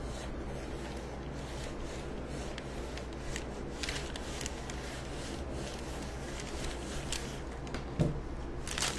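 Small Cricut Mini Press heat iron sliding back and forth over parchment paper, a faint rubbing, with a light knock about eight seconds in as the iron is set down in its stand.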